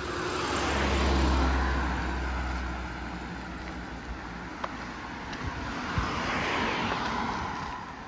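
Street traffic: two vehicles pass close by, one after the other. The first peaks about a second in with a deep rumble, and the second swells and fades around six to seven seconds in.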